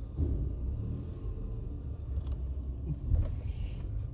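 Low, steady rumble of a car heard from inside the cabin as it drives, with a few faint knocks.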